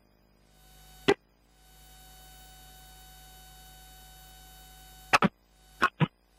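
Steady electrical hum with several thin, even tones, broken by short sharp bursts about a second in and twice more near the end, the hum cutting out briefly after each burst.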